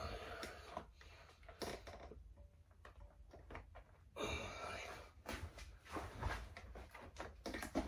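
Faint, irregular scraping and rustling with a few light clicks as metal shower pan netting is pressed and bent by hand over the curb.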